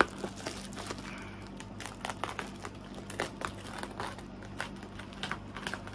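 Clear plastic wrapping crinkling and crackling as it is pulled off a parcel and scrunched by hand, in irregular crackles.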